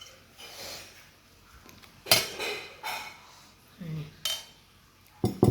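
Cutlery clinking against a dish: a few separate, ringing metal clinks, about two seconds in, again about four seconds in, and a quick double clink at the end.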